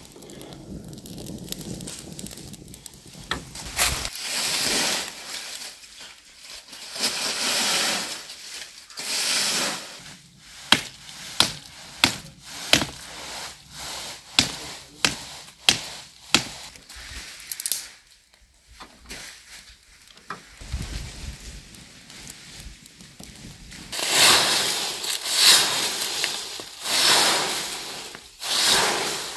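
A kindling fire blown into flame with a low rumble at the start, then dry leaves swishing and a run of sharp cracks of dry wood. Near the end a straw broom sweeps fallen leaves with repeated scratchy swishes.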